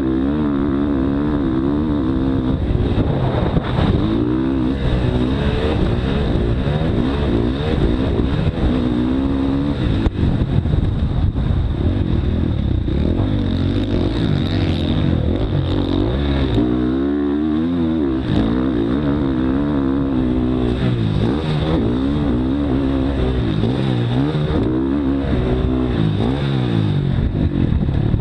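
Motocross dirt bike engine revving hard, its pitch climbing and dropping every second or so as the throttle opens and closes and the rider shifts, heard close up from a camera mounted on the bike.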